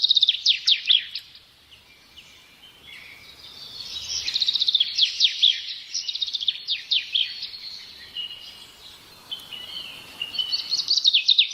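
Small birds chirping and twittering in quick runs of falling chirps and trills. The runs are busiest around the start, from about four to seven seconds in, and again near the end, with softer calls between.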